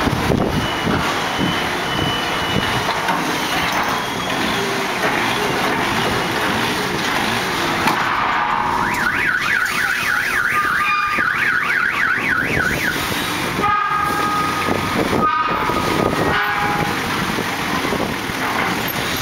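Forklift engine running, with wind buffeting the microphone. About nine seconds in, a fast warbling electronic alarm sweeps up and down two to three times a second for about four seconds.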